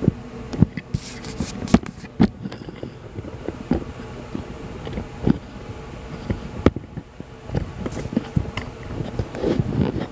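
Steady hum of commercial kitchen equipment, with scattered sharp clicks and knocks.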